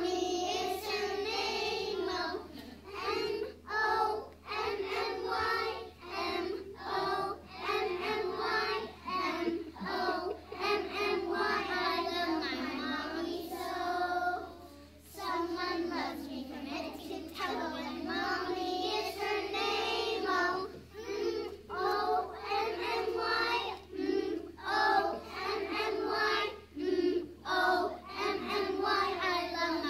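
A group of preschool children singing a song together in unison, with a short break about halfway through.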